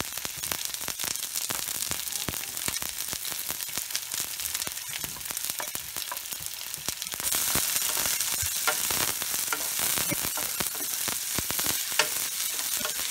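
Sliced onions sizzling and crackling in hot oil in a nonstick frying pan at the start of browning. About seven seconds in the sizzle grows louder, and near the end a wooden spatula stirring the onions adds knocks against the pan.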